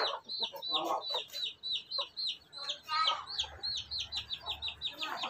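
Chicks peeping without pause, each peep a short, high, falling note, several a second and coming faster near the end. A few lower clucks from the adult chickens come in about a second in and again around three seconds.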